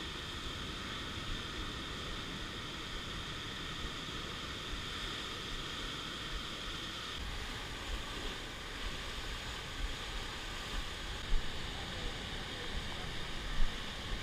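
Ocean surf breaking and washing over shoreline rocks, a steady rushing noise. Two sharp thumps stand out late on, one about eleven seconds in and one near the end.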